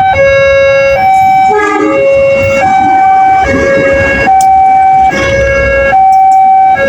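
Railway level-crossing warning siren sounding a two-tone hi-lo alarm: a higher and a lower note take turns, each held about 0.8 s. This is the crossing's warning that a train is approaching.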